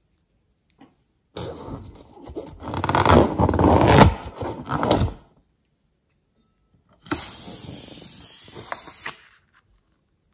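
Slime being squeezed out of rubber balloons: about four seconds of loud wet squelching and crackling, then after a pause a quieter, hissing spurt of slime and air from a second balloon's neck.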